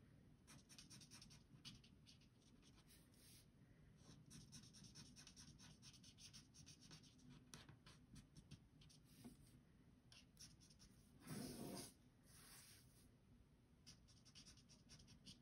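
Faint, quick scratching of a Stampin' Blends alcohol marker tip on cardstock, many short strokes as small petals are coloured in. A brief louder rustle comes about two-thirds of the way through.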